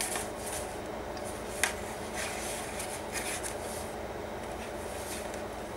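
Paper and cardstock pages of a handmade junk journal rustling and sliding as they are turned and handled, in short scrapes, with one sharp tap about a second and a half in, over a steady low room hum.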